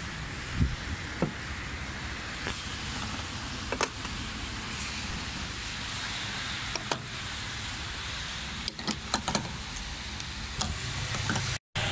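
Steady car background noise with scattered short clicks and knocks, cut off abruptly near the end.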